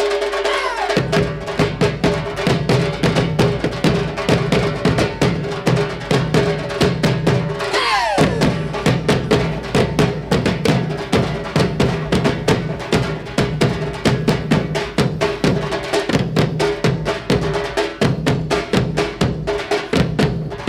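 Minangkabau traditional drum ensemble playing a fast, dense rhythm over a steady held note, with two downward swoops in pitch, one at the start and one about eight seconds in. The full drum sound comes in about a second in.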